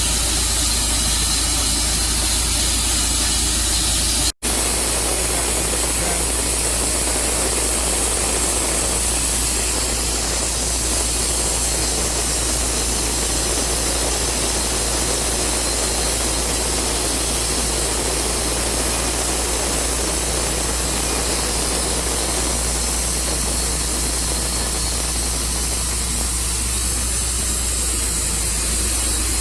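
Tru Cut sawmill running steadily with a loud, even noise. The sound drops out for an instant about four seconds in.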